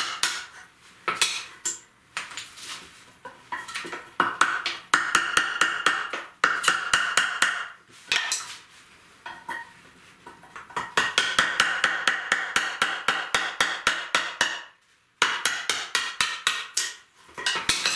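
Hammer blows on a chisel cutting a notch into a pine board, struck fast at about four a second in several runs with short pauses, each blow ringing with a clear metallic tone.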